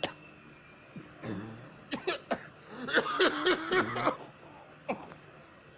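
A person coughing hard in fits: a few single coughs, then a run of several quick voiced coughs about three seconds in, and one more cough near the end.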